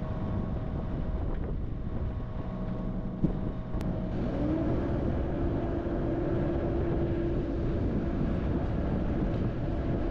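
Excavator engine running steadily. A sharp click comes about three seconds in, and about four seconds in a steady whine rises in pitch and then holds.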